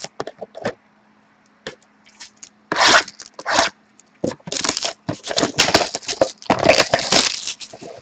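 A sealed trading card box being opened by hand: plastic wrap tearing and crinkling and cardboard scraping, in irregular bursts that are busiest in the second half.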